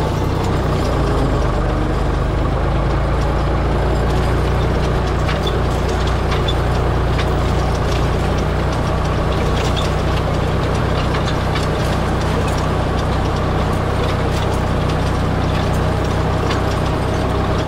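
Ford 4610 tractor engine running at a steady speed while pulling a Farmhand wheel rake, with scattered light clicks and rattles over the engine drone.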